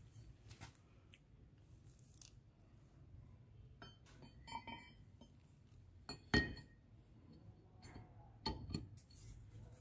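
Brass saddle plate being seated by hand into the cast-iron housing of a Yuken A70 variable piston pump: a few scattered metal clinks and knocks, some with a short ring. The loudest knock comes about six seconds in and another near the end.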